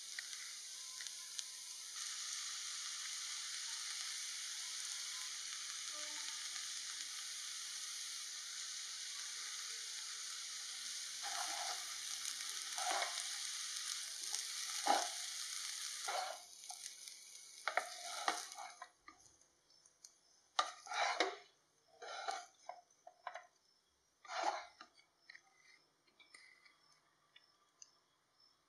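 Egg fried rice sizzling steadily in a nonstick pan on high heat while a spatula tosses and scrapes it through. The sizzle stops abruptly about two-thirds of the way through, leaving only scattered spatula scrapes and stirs through the rice.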